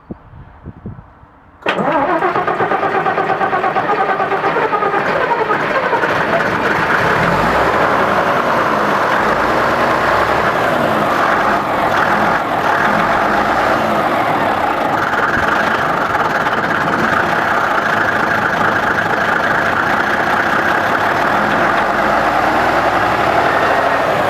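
Deutz V12 diesel engine of an aircraft tow tractor starting: it catches suddenly about one and a half seconds in, with the throttle pressed during the start. It then runs loud and steady, its speed rising and falling slightly.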